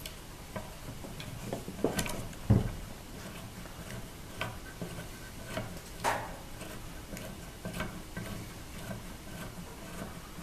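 Scattered light clicks and taps of metal parts being handled while a bandsaw's upper blade guide assembly is taken apart, with a slightly heavier knock about two and a half seconds in.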